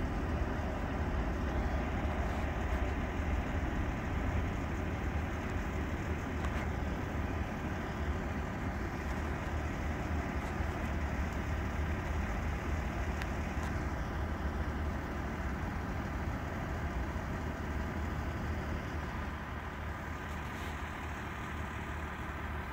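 Truck engine idling with a steady low rumble, growing slightly quieter toward the end.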